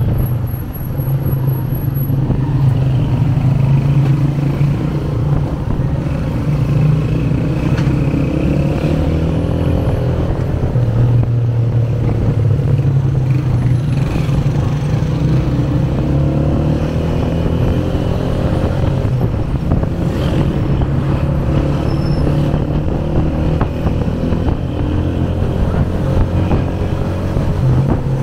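Motorcycle engine running steadily under the rider, its pitch drifting gently up and down with the throttle in slow traffic, over a haze of road and traffic noise.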